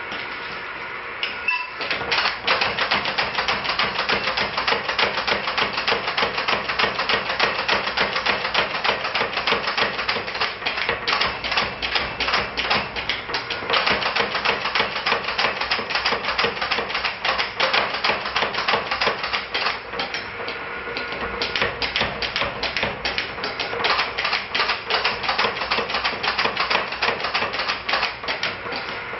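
Power hammer pounding a glowing bar of bloomery iron held in tongs: a rapid, even run of metal-on-metal blows that starts about two seconds in and eases briefly about two-thirds of the way through.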